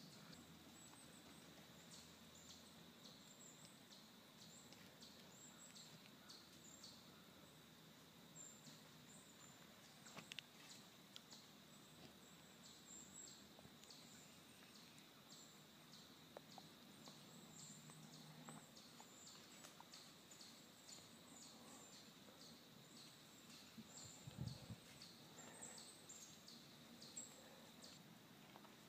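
Near silence in the woods, with faint short high chirps repeating evenly about twice a second and a soft low thump near the end.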